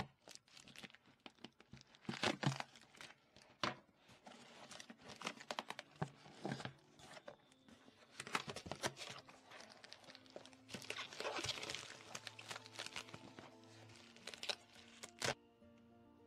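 Packaging being handled and opened: irregular crinkling, rustling and tearing of paper and plastic, with a sharper crack near the end, over soft background music.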